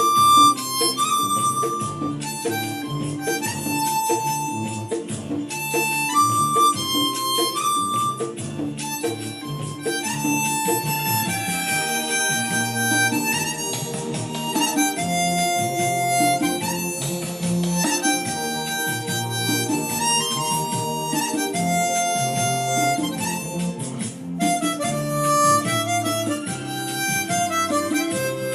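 Harmonica playing a Hindi film-song melody in held, sliding notes, with a lower accompaniment sounding underneath.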